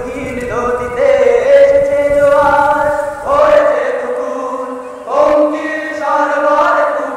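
A singing voice holding long notes in a slow, chant-like melody. A low rumble runs under the first half and stops about halfway through.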